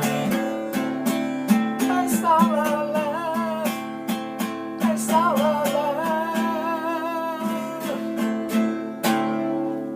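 Live music: acoustic guitar strumming the closing bars of a song, with a wavering held melody line over the chords. A last strum just after nine seconds in rings out and fades.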